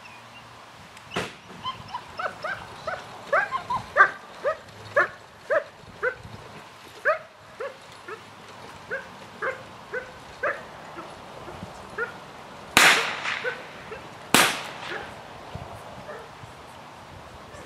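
German Shepherd dog giving a rapid string of short, high-pitched excited barks and yelps, about two a second, thinning out after a few seconds. Near the end come two much louder sharp bangs about a second and a half apart.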